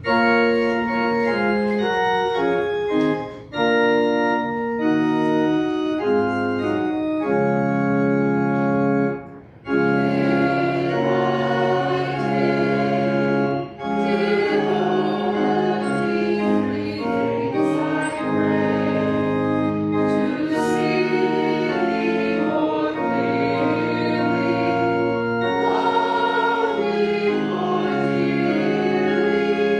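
Organ playing a hymn in slow held chords, pausing briefly between phrases about three and a half and nine and a half seconds in. From about ten seconds in, a congregation is singing along.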